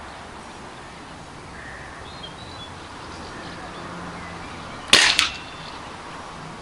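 A single shot from a Remington Warhawk .22 spring-piston air rifle about five seconds in: a sharp report followed a moment later by a second, smaller crack.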